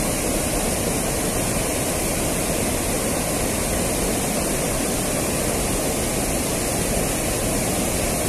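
Steady rush of water pouring over a low concrete river weir, an even, unbroken noise.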